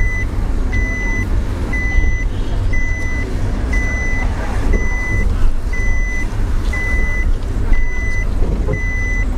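Electronic warning beep sounding steadily, a half-second beep about once a second, over the low rumble of engine and road noise inside a car creeping through traffic.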